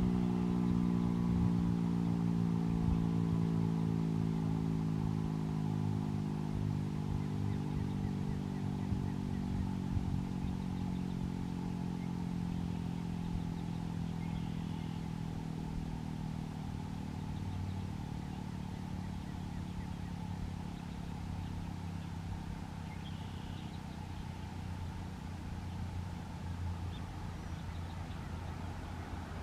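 Federal Signal Model 5 outdoor warning siren winding down at the end of its alert signal, its tone sinking slowly and steadily in pitch and fading as the rotor coasts to a stop.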